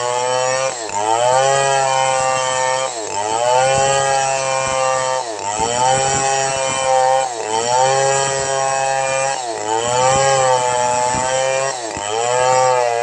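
Chainsaw engine running at high revs while ripping a log lengthwise. Its pitch drops sharply and climbs back about every two seconds, six times, as the engine slows under load in the wood and recovers.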